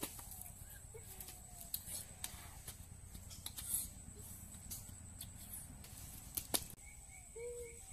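Hands scraping and digging through loose ash and soil, with light scratching rustles and small knocks, one sharper click about two-thirds of the way in. A few faint thin chirps come near the end.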